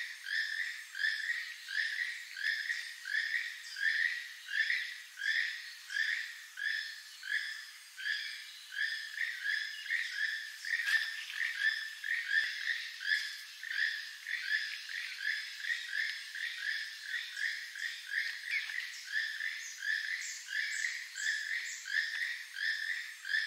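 Keel-billed toucan singing: a frog-like croak repeated steadily, about two notes a second.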